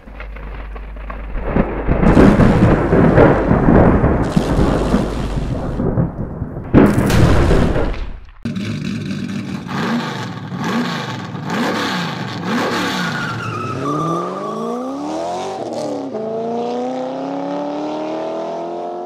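A heavy rumbling roar for about eight seconds that cuts off suddenly, followed by a car engine revving up and down several times and then climbing steadily in pitch as it accelerates.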